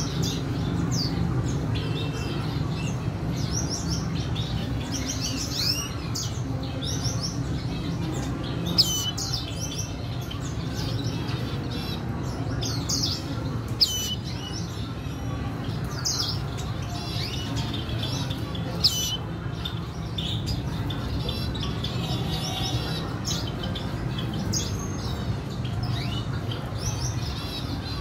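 Red siskins chirping and twittering in many short, high calls, with three sharp clicks about five seconds apart, over a steady low hum.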